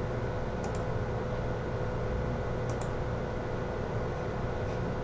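A steady electrical hum with room noise, with about three faint, short computer-mouse clicks spread through it.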